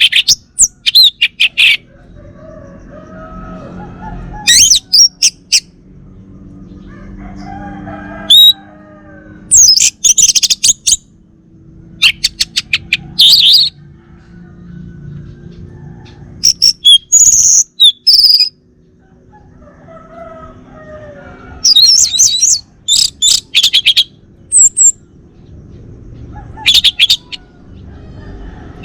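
Male orange-headed thrush singing: loud, high-pitched phrases of quick sweeping notes, repeated every few seconds, with fainter, lower bird calls between the phrases.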